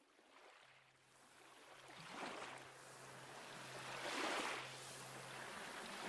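Rushing, splashing water fading in from silence and swelling twice, with a low steady hum beneath.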